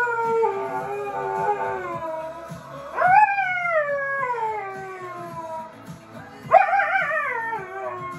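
Alaskan malamute howling along to a pop song: long howls that swoop up at the start and then slowly fall in pitch, one already going, a new one about three seconds in and another about six and a half seconds in.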